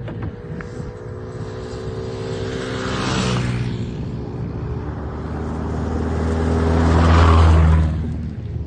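Motor vehicle engine running steadily, swelling louder twice. The second swell is the loudest and drops away sharply near the end.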